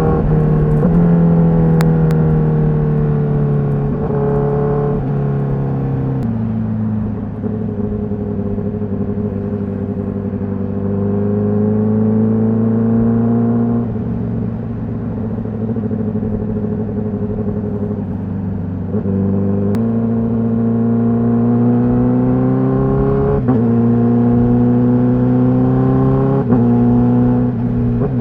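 Honda CBR1000RR-R SP's inline-four engine with its stock exhaust, pulling steadily with the pitch creeping up, then dropping suddenly at each quickshifter upshift: several in the first six seconds, again about halfway through and near the end. A little after the middle the pitch steps up instead, as at a downshift.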